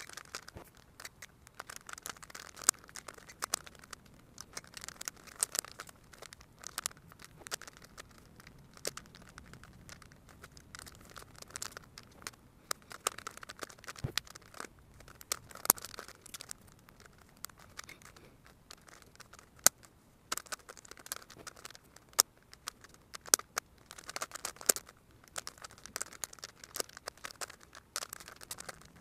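Megaminx puzzle being twisted by hand: a stream of irregular plastic clicks and scraping as its faces turn, in quick flurries with short pauses.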